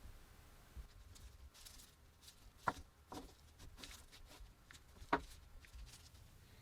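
Faint, scattered light clicks and taps of small hard objects being handled, with two sharper clicks, the first a little under three seconds in and the second about five seconds in.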